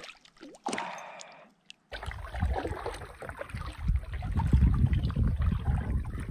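Kayak paddle strokes through lake water, with wind rumbling on the microphone, starting about two seconds in.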